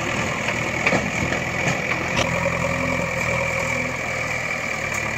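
Engine idling steadily, with a few light clicks over it.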